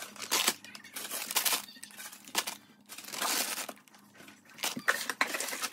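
Plastic snack wrappers and chip bags crinkling as they are handled and packed into a fabric storage bin, in several irregular bursts of rustling with a few light knocks.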